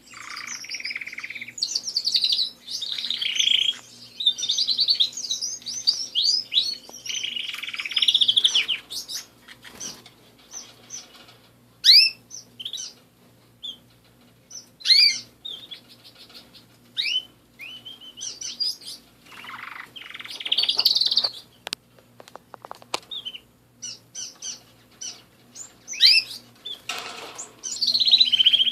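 Domestic canaries singing: phrases of rapid trills and quick sweeping whistles, broken by short pauses. A faint steady hum runs underneath.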